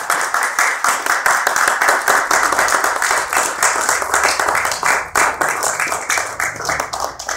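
Audience applauding, many hands clapping densely and loudly, easing off slightly near the end.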